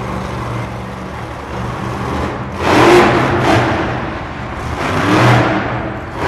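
War Wizard monster truck's engine running, then revving hard in three surges as it launches over crushed cars, the loudest about two and a half seconds in and another near five seconds.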